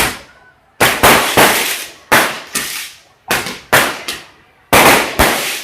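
A series of loud, sharp bangs, two or three in quick succession in each of about four clusters roughly a second apart, each dying away in a short noisy tail.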